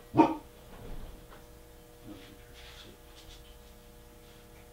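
A short, loud burst just after the start, then faint rustling and small ticks of hands pulling thread through a boar cape as the stitching around the eye is finished, over a faint steady hum.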